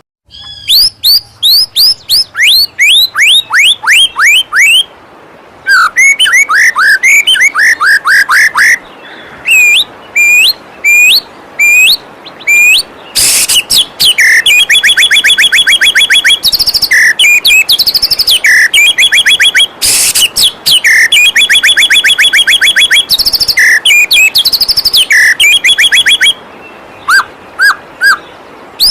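White-rumped shama singing loudly: runs of quick downward-sweeping whistles give way to long, fast trills, phrase after phrase, over the steady rush of a waterfall.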